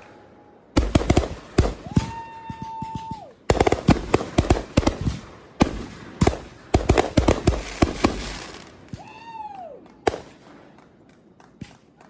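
Consumer fireworks going off in rapid strings of bangs and crackles. Among them are whistling fireworks: one whistle holds a steady pitch for about a second and a half a couple of seconds in, and another falls in pitch about nine seconds in. The bangs thin out after a last sharp crack about ten seconds in.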